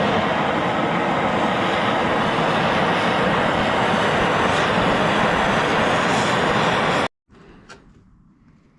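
Loud steady rushing noise from workshop equipment working on a seized sludge trap plug in a motorcycle crankshaft. It cuts off abruptly about seven seconds in.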